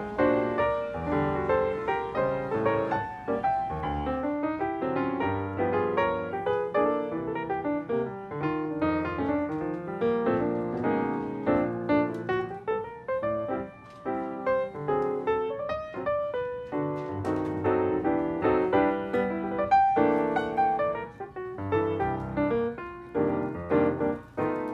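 Background piano music, a steady stream of quick notes.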